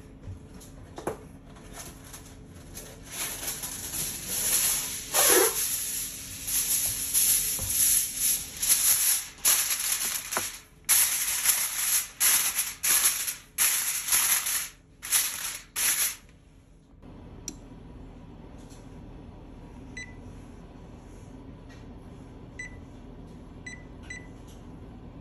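Aluminium foil crinkling and rustling in loud, rapid bursts as it is pressed down over a glass baking dish. About 20 seconds in come a few short beeps from an electric oven's control-panel keypad as the temperature and cook time are keyed in.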